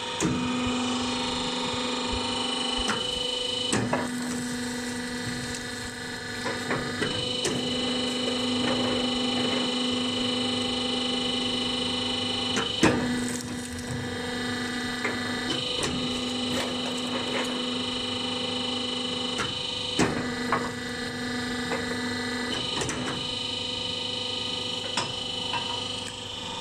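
Copper motor-stator recycling machine running: its hydraulic power unit gives a steady whine whose tone changes every few seconds as the ram works. A few sharp metal knocks come through, the loudest about halfway through.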